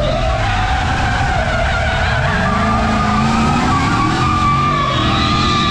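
A drift car sliding under power: engine running hard and tyres skidding, with the engine note climbing about two seconds in. A steady high whine from the chasing FPV drone's motors runs over it.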